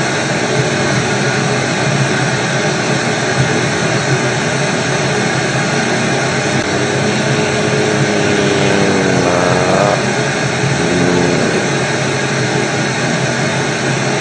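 Loud, steady white-noise static like a radio or TV that has lost its signal. Faint wavering tones rise out of the hiss about nine seconds in and again about eleven seconds in.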